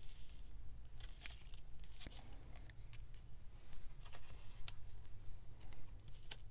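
Paper cut-outs rustling against clear plastic page pockets as they are slid into the sleeves, with a few short, sharp crackles of the plastic.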